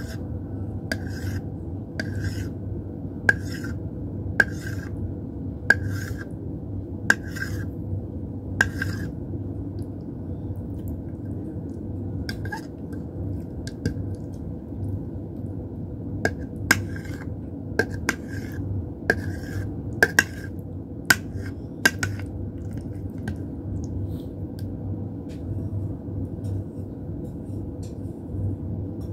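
Kitchen knife slicing gulaman (agar jelly) into thin strips on a plate, the blade clicking sharply against the plate about once a second for the first nine seconds, then in irregular clusters. A steady low hum runs underneath.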